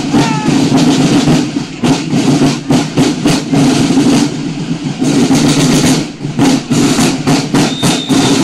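Marching snare drums of a Buekorps drum corps playing a parade beat, dense rapid strokes with a brief lull about halfway through.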